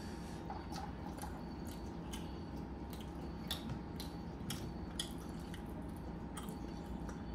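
Someone eating steamed momos: irregular small clicks and squishy mouth sounds of chewing, about one or two a second, over a faint steady hum.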